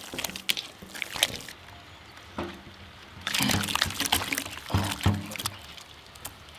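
Wet green masala paste of ground herbs and curd squelching as a hand kneads and squeezes it in a steel bowl, in irregular wet smacks and squishes, loudest about three to four seconds in.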